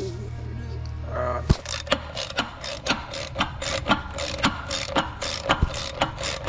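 Hand ratchet wrench clicking at about three clicks a second as it turns a bolt loose on an ATV rear axle, starting about a second and a half in.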